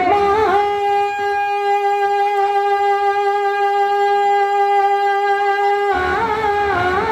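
Male naat reciter holding one long, steady sung note into a microphone for about five seconds; about six seconds in, the note breaks and the wavering sung melody resumes.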